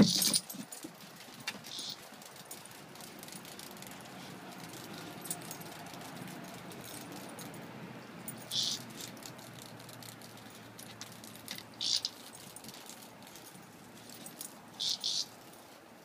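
Short, high rattling bursts as two Rottweiler puppies nose and paw at a live cicada: a loud one at the start, a few single rattles spread through, and two in quick succession near the end.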